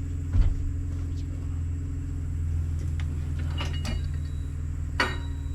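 Six-cylinder engine of a half-ton Dodge pickup idling steadily, with a loud knock about half a second in and a few sharper clicks later, the last and loudest near the end.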